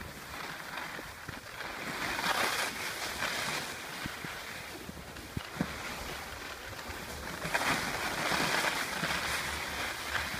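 Skis hissing and scraping over packed snow on a downhill run, with wind buffeting the microphone. The scraping swells louder twice, about two seconds in and again near the eight-second mark.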